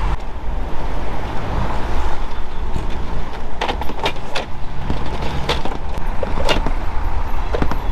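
An engine running with a steady low rumble, with several short sharp knocks in the second half.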